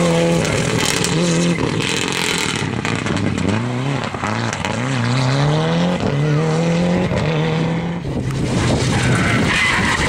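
Toyota Celica rally car's engine revving hard again and again, each rev rising in pitch, with tyres skidding and spinning as the car, run off the road onto the grass, fights to get going. Near the end another rally car's engine and the hiss of sliding on gravel take over.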